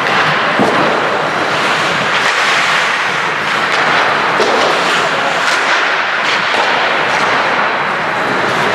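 Ice hockey play on the rink: a steady noise of play on the ice, broken by many short, sharp clacks of sticks and puck.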